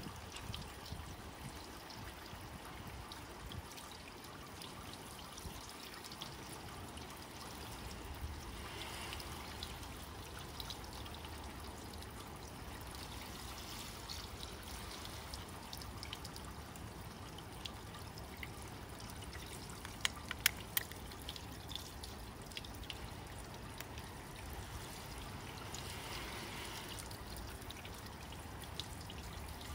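Water from a garden-hose shower nozzle spraying onto a car's glass-coated bonnet and grille and running off the paint. There are a few sharp clicks about two-thirds of the way through.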